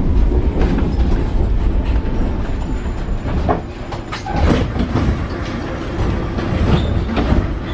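Paris Metro Line 7bis MF 88 train running on steel wheels: a steady low rumble with clusters of clicks and clacks as the wheels pass over rail joints, about halfway through and again near the end.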